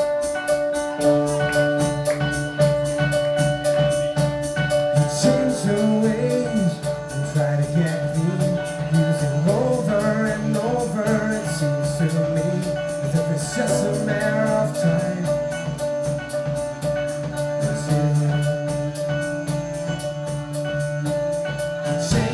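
Live band playing a song with guitars and a steady drum beat; a wavering lead melody comes in about five seconds in.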